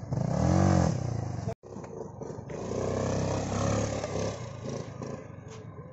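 Yamaha R15 V3's single-cylinder engine revved once, its pitch rising and falling, then after a sudden cut a motor scooter's engine accelerating away and fading.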